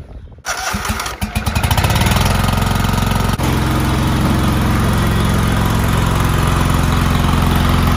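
Kohler 24 hp V-twin engine of a Craftsman GT3000 lawn tractor starting up: a second or so of separate firing pulses that quicken as it catches, then running steadily.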